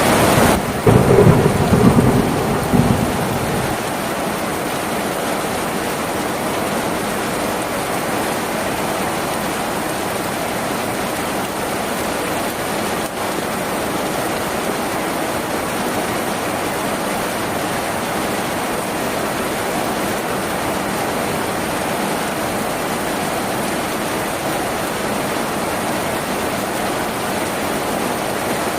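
Steady heavy rain drumming on a tin roof, with a low rumble of thunder over the first few seconds that dies away.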